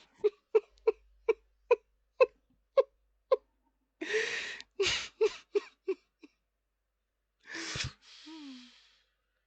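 A person's stifled, breathy laughter: a run of short puffs about two a second, then a few louder breathy laughs and gasps.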